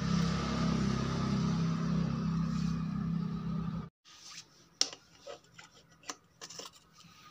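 A steady droning hum that cuts off abruptly about four seconds in. After it, a few faint metallic clicks as a socket spanner is fitted to a bolt on a motorcycle engine's crankcase.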